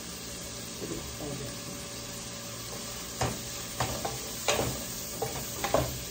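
Shrimp frying with onion in margarine in a pot, sizzling steadily. From about three seconds in, a wooden spatula stirs them, knocking and scraping against the pot several times.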